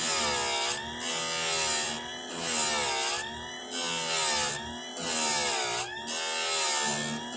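Electric chainsaw-chain grinder sharpening the chain's cutting teeth, one tooth after another: the motor's pitch sags under load with a high grinding hiss on each pass, then picks back up, about once a second.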